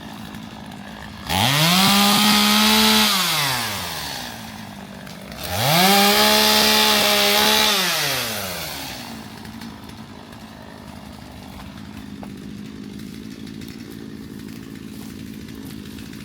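Two-stroke chainsaw revved up twice to full speed, each time held for about two seconds, then dropping back to idle. The engine idles on for the rest of the time.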